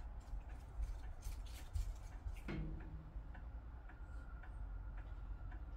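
Faint, regular ticking over a steady low background rumble, with a brief low sound about halfway through.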